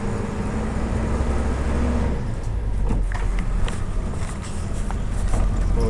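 Bus heard from inside the cabin: the engine runs with a steady hum whose tone drops away about two seconds in. After that a low rumble goes on, with scattered rattles and knocks from the bodywork on a rough dirt road.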